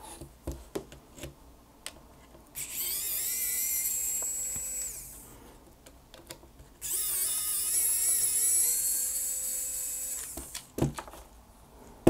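Electric precision screwdriver whirring in two runs of about three seconds each, a high whine that wavers in pitch as it backs out small screws from a DJI Avata drone's frame. Small clicks of handling come before, between and after the runs.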